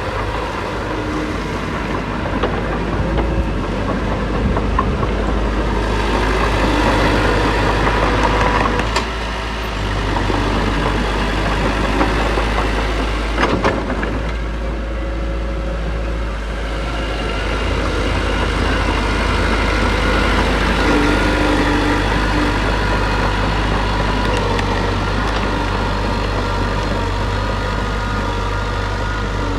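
Diesel engine of heavy earthmoving machinery running steadily, its pitch shifting now and then, with a short sharp knock about halfway through.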